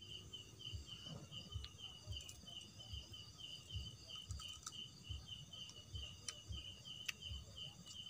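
A cricket chirping in a steady rhythm, about three chirps a second, over a faint high drone of other night insects, with a few faint clicks.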